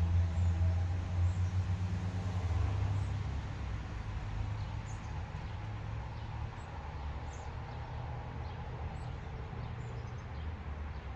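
Honda EB5000i inverter generator's engine running steadily, a low hum that eases down to a quieter, even level about three seconds in.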